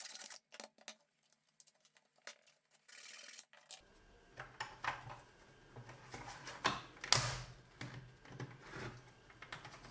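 Hard plastic clicking, tapping and scraping as a clear plastic light-guide housing is pushed and worked into the lighter-socket opening of a BMW E46 centre console trim. At first there are only a few faint ticks; the clicks and short scrapes grow busier from about four seconds in.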